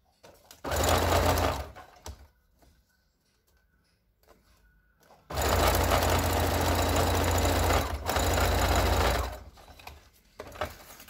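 Electric sewing machine stitching a zipper, on its zipper foot, onto a clear plastic strip. It sews in two runs: a short one of about a second, then after a pause a longer steady run of about four seconds that halts briefly near its end.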